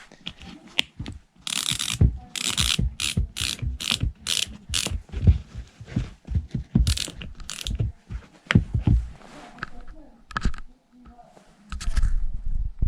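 Ratcheting dial of a Popuava spin-buckle laceless lacing system being turned, giving runs of sharp clicks in irregular bursts as the line tightens.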